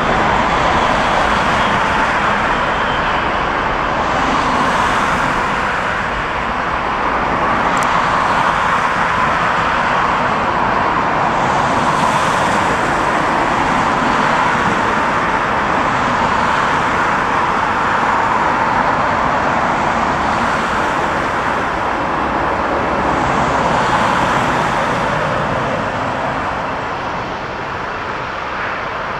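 Steady loud roar of a jet airliner's engines on the runway, mixed with road traffic noise, swelling and easing a few times.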